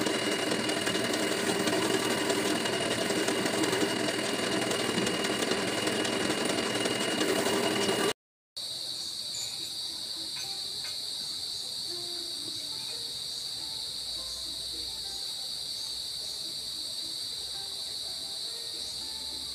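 Lathe-driven buffing wheel spinning while a carabao-horn slingshot frame is pressed against it for polishing: a loud, steady machine drone with a thin steady whine. It cuts off abruptly about eight seconds in, and a steady high-pitched insect drone follows.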